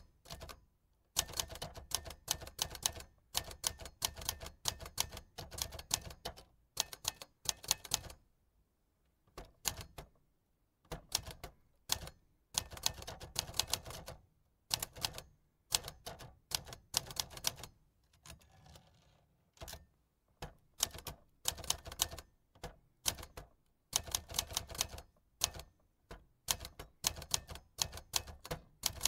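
Manual typewriter being typed on: rapid key strikes in bursts of a second or two, with short pauses between them.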